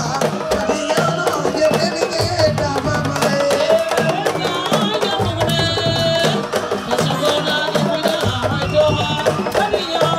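Sabar drums playing a dense, fast rhythm, with a voice singing over them.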